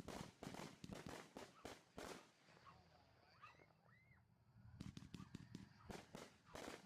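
Consumer fireworks going off in rapid runs of sharp pops and bangs, in two volleys: one over the first two seconds, another from about five to seven seconds in.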